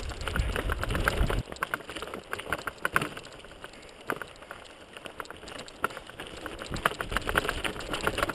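Mountain bike rattling and clattering as it rides down a rocky trail: irregular clicks and knocks from the bike and its tyres over stones. There is a low rumble for the first second and a half.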